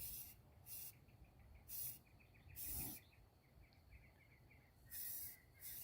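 Short bursts of aerosol spray paint hissing from a can, about five brief sprays. Faint rapid chirping runs underneath.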